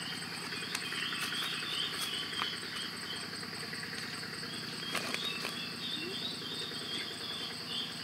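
Insects chirping and buzzing steadily in high grass, with a few sharp clicks scattered through.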